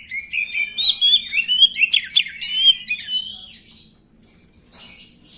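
Oriental magpie-robin (kacer) singing a fast, unbroken run of varied whistles, chirps and sliding notes that breaks off about three and a half seconds in. A short harsh rasp follows near the end.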